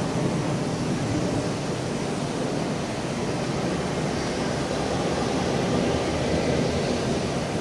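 Heritage passenger train rolling past as a steady rumble of carriage wheels on the track, then the trailing 42 class diesel-electric locomotive 42105 going by about four seconds in.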